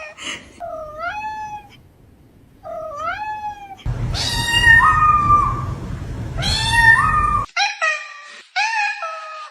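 A cat meowing over and over: two short meows, then two longer, louder drawn-out calls over a low rumbling noise, then a quick run of four or five short meows near the end.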